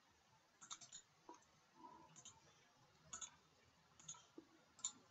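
Near silence with a few faint, scattered clicks from a computer mouse and keyboard in use.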